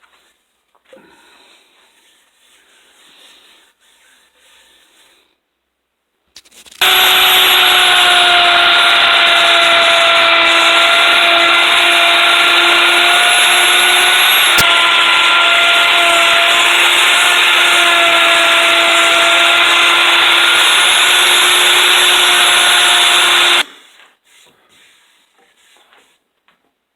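Power woodworking tool cutting pine: after a few quiet seconds it starts abruptly, runs loud and steady with a held hum for about seventeen seconds, then stops abruptly.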